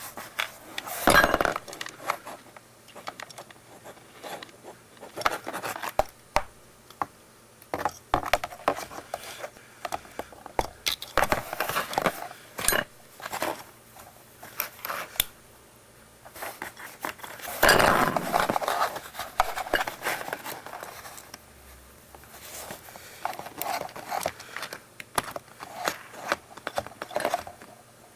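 Hard plastic parts of a Panasonic EW1250P oral irrigator being handled and fitted by hand: irregular clicks, knocks and scrapes, busiest about a second in and again midway through.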